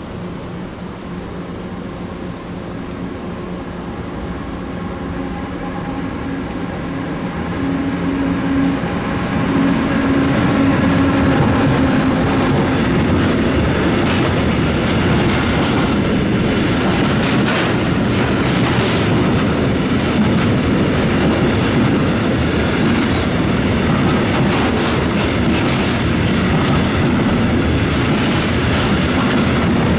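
Siemens Vectron electric locomotive (Re 193) approaching with steady humming tones, growing louder over the first ten seconds. Then a long train of container wagons rolls past, with rapid clickety-clack of wheels over the rail joints and a few brief wheel squeals.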